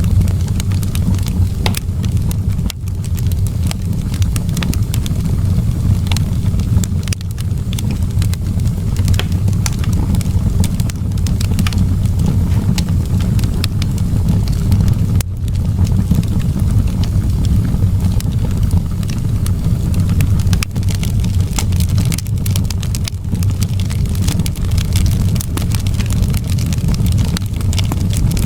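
Wood fire crackling in a fireplace, with frequent, irregular sharp pops and snaps over a steady low rumble.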